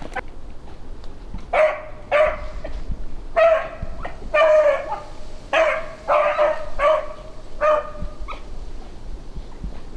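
Beagle baying on a cottontail rabbit's scent trail: about eight drawn-out bawls at one steady pitch, a few per second's gap apart, stopping shortly before the end. The hound is giving voice as it runs the rabbit's track.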